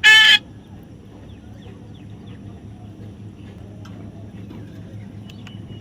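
A bird gives one loud, harsh call right at the start, then only faint, scattered chirps over a low steady hum.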